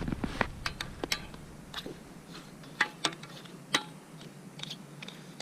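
Irregular sharp clicks and clinks of metal parts being handled while an ice auger is fitted with a cordless-drill adapter, the two loudest knocks about three and four seconds in.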